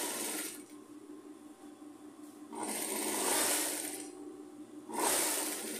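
Industrial straight-stitch sewing machine stitching strips of fabric, run in short bursts: one ending about half a second in, another of about a second and a half in the middle, and a third starting near the end, with quiet pauses between.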